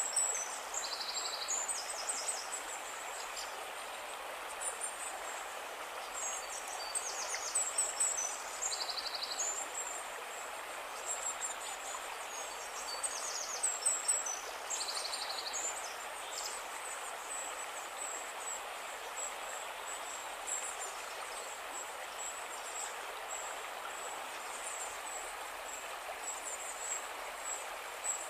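Outdoor nature ambience: a steady rushing noise with short, rapid, high chirping trills that recur every few seconds. A thin, steady high whine joins about halfway through.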